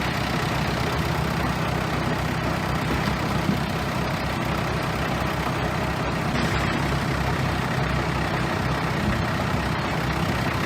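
Bulldozer's heavy diesel engine running steadily, with a constant low drone and no sharp changes in speed.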